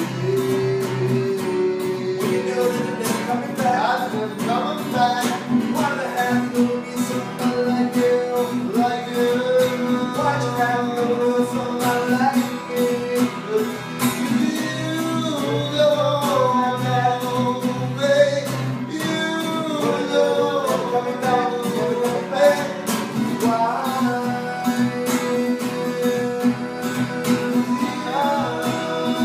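Acoustic guitar played in steady chords under a sung melody: an unplugged live song performance.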